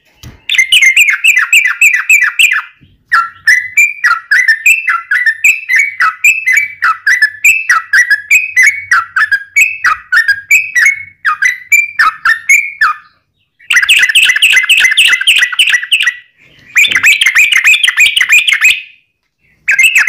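Yellow-vented bulbul (trucukan) in full song: long runs of rapid, bubbling chattering phrases, with a middle stretch of repeated downslurred notes about two a second, broken by a few short pauses. This fast, continuous 'ropel' singing is the kind used as a lure to get other bulbuls calling back.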